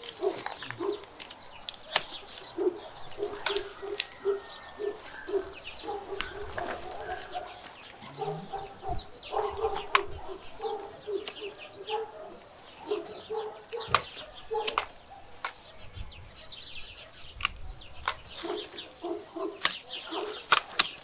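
Pruning shears cutting peach branches: sharp snips every few seconds, the loudest events. Behind them, chickens cluck in short repeated notes and small birds chirp.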